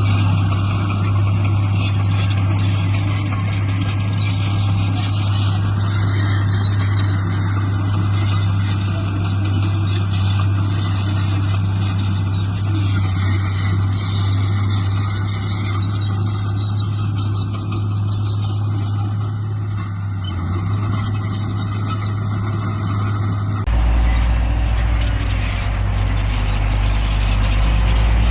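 Diesel engine of heavy earthmoving machinery running steadily, a deep low drone with a constant mechanical noise above it. About three-quarters of the way through, the sound changes abruptly to an even deeper drone.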